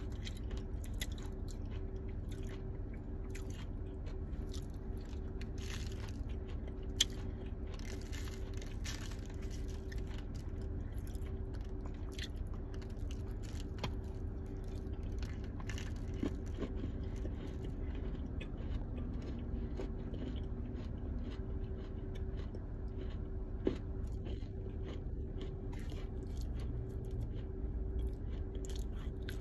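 Dry clay ball being crunched and crumbled: a dense run of small crisp crunches and crackles, with two sharper snaps, about seven seconds in and about twenty-four seconds in.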